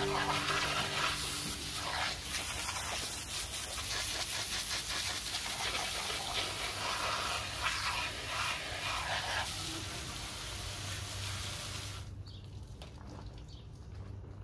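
Pressure-washer jet hissing steadily as it sprays the steel frame of a railroad tie remover, with a low steady hum underneath; the spray cuts off about twelve seconds in.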